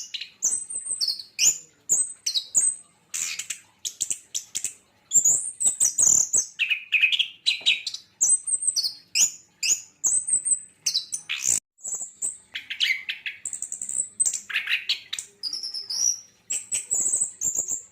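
Caged orange-headed thrush (anis kembang) singing a rapid, varied song of short, high chirping and warbling phrases with brief pauses between them.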